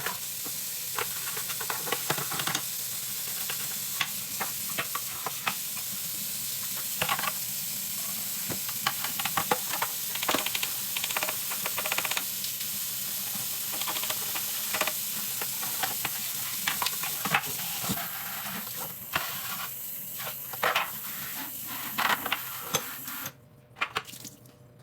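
A washing machine being scrubbed by hand: irregular scraping and knocking over a steady hiss, which stops suddenly near the end.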